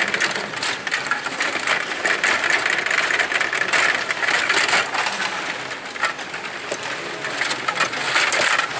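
Stiga table hockey game in play: a busy, continuous clatter of metal control rods being pushed, pulled and spun, with plastic players knocking the puck and the boards. It eases a little about two-thirds of the way through and picks up again near the end.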